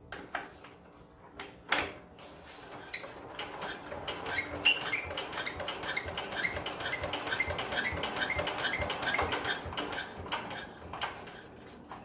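A few sharp metal clinks, then a fast, even run of ratchet-wrench clicks that lasts several seconds and stops near the end, as a bolt on a walk-behind power tiller's engine is turned.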